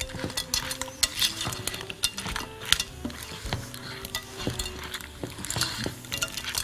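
A spoon stirring flour into sizzling seafood and vegetables in a cooking pot, with irregular scrapes and clicks of the spoon against the pot. The flour is being stirred in until it is fully absorbed.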